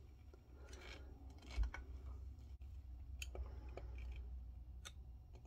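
Faint scraping and several light clicks of a thin pry tool working into the seam between a cured resin bowl and the Corelle bowl form it was cast on, over a low steady hum.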